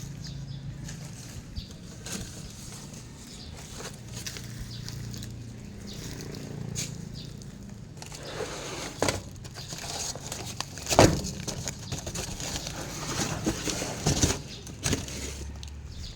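Rustling and handling noises with scattered sharp knocks, the loudest about eleven seconds in and another near fourteen seconds.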